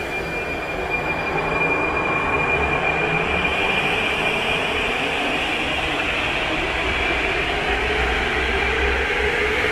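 Prague Metro 81-71M train pulling out of the station: motors and wheels run up in a rumble that grows louder over the first couple of seconds, with a steady high whine over it as the cars accelerate past.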